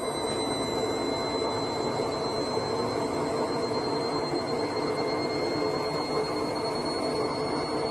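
Steady mechanical running noise with a faint, constant high whine held over it.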